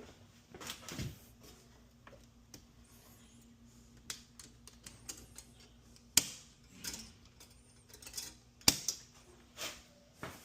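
Scattered light clicks and knocks of hand tools and metal parts being handled, with two sharp clacks about six and nine seconds in, over a faint steady hum.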